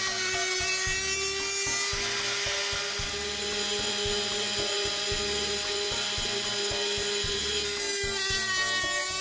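Small electric spindle motor of a homemade gear-cutting machine whining steadily as its cutter mills teeth into a brass gear blank, with a choppy low rumble from the cut under it. The pitch sags slightly near the end.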